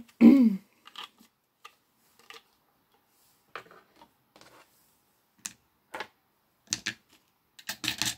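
Irregular small clicks and short rattles of plastic diamond-painting trays and resin drills being handled while leftover drills are filled back into their containers, with a denser cluster of clicks near the end.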